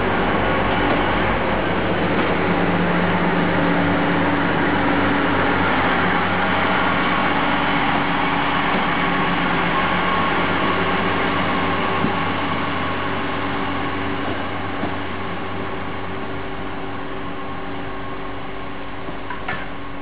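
TER AGC diesel railcar pulling away under power, its diesel engines running with a steady note that shifts in pitch as it gathers speed. The sound fades over the last several seconds as the train draws off.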